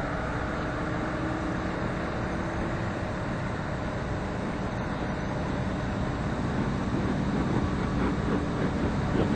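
Space shuttle orbiter rolling out on the runway after touchdown: a steady, even rumble with a faint low hum, growing a little louder near the end.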